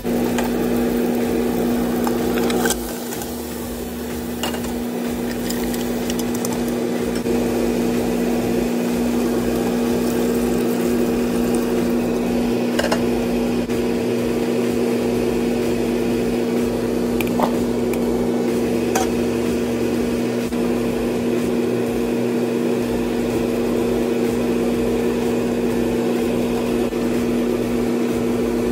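A steady electric motor hum, with faint cooking noise from the pot and a few light clicks.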